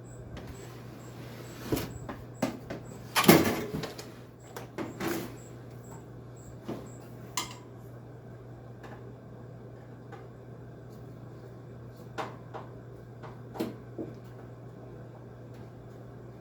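Scattered metal clicks and clanks of hand tools and sheet-metal parts being handled while dismantling a window air conditioner's case, the loudest a rattling clank about three seconds in, over a steady low hum.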